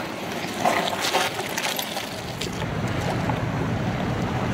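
Seaside outdoor ambience: a steady low rumble sets in about halfway, with a few faint scattered sounds before it.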